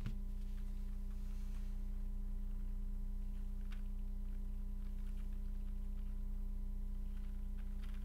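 Steady low electrical hum with a few faint clicks from keycaps being handled on a keyboard.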